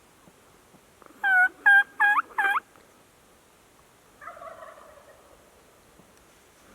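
Turkey yelping: four loud yelps in quick succession, each note bending in pitch, then a second and a half later a softer, rougher call.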